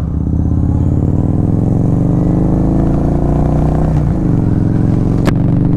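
Victory Highball's V-twin engine pulling under acceleration, its pitch rising for about four seconds, then dropping at a gear change and rising again. A single sharp tick near the end.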